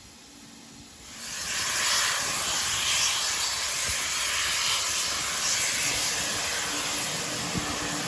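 N&W J-class 611 steam locomotive venting steam: a loud, steady hiss that starts about a second in.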